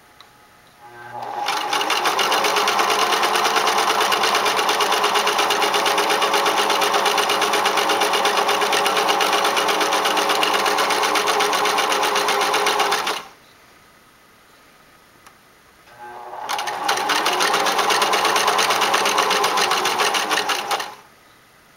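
Singer Merritt 1802 electric sewing machine stitching fabric: the motor comes up to speed and the needle runs in a fast, even rhythm for about twelve seconds, stops for about three seconds, then runs again for about five seconds.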